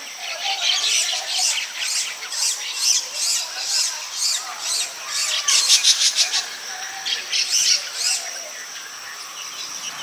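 Baya weavers chattering: a run of high, scratchy chirps about twice a second, with a quick rapid run in the middle and a fade near the end. This is the chattering song males give at the nest to court a female.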